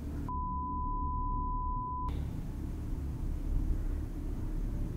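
Edited-in censor bleep: one steady beep tone lasting about two seconds, starting about a third of a second in, over a low rumble.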